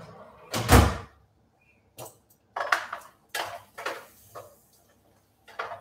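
An oven door closing with a heavy thud about a second in, then several shorter clinks and scrapes of metal tongs turning roast vegetables in a hot roasting tray.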